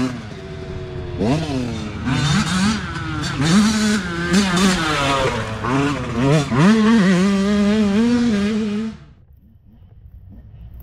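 Youth dirt bike engine revving up and down over and over as the rider accelerates and shifts, held at high revs for a couple of seconds, then cut off abruptly about nine seconds in, leaving only a faint low sound.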